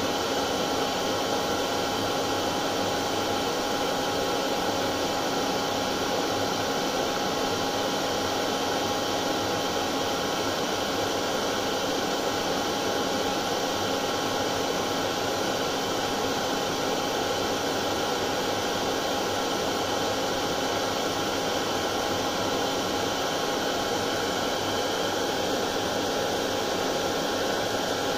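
Hair dryer running steadily: a constant blowing hiss with a fan-motor whine held at one pitch.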